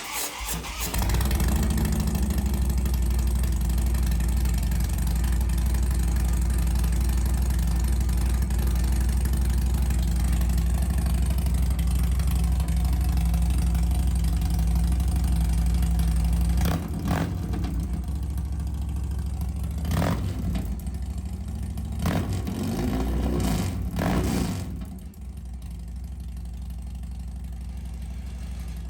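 Harley-Davidson Dyna Street Bob V-twin with a newly fitted aftermarket exhaust being started for the first time. It catches right away and runs at a loud, steady fast idle. A little past halfway it is blipped on the throttle three times, then settles to a quieter idle near the end.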